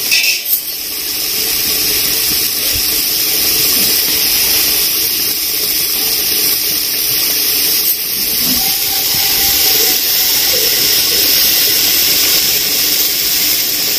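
Steady sizzling hiss of a pot of chicken masala cooking on the fire.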